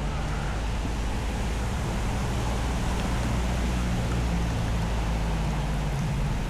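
Steady rain and wind noise with a low, steady hum underneath.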